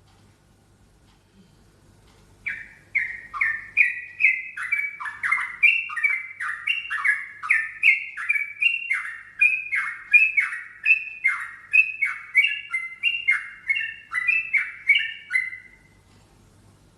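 Yellow-vented bulbul (trucukan) singing a long, unbroken run of quick descending chirps, about two a second. It starts a couple of seconds in and stops shortly before the end. The uploader calls this song strange for the species.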